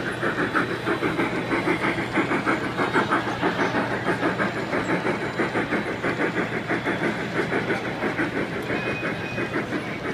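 Large-scale model steam locomotive running past, chuffing in a steady, rapid rhythm of several beats a second.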